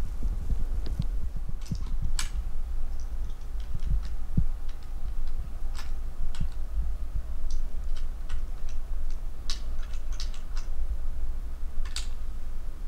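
Wind buffeting the microphone as a steady low rumble, with scattered light ticks and clicks.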